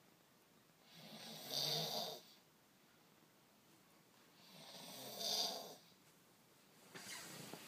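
Slow, rhythmic snoring: two full snores about three and a half seconds apart, each swelling and then stopping abruptly, and a third starting near the end.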